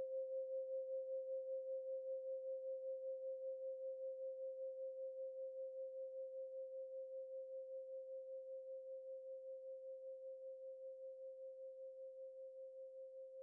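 A single pure ringing tone at a middle pitch, wavering about four times a second and slowly dying away.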